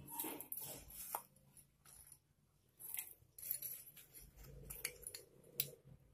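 Faint, scattered clinks and scrapes of a metal spoon against a glass bowl and a steel mixer jar as grated jaggery is spooned in.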